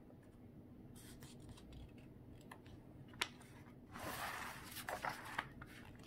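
Faint rustle of a picture book's paper page being turned by hand, loudest in the second half, with a single light click shortly before.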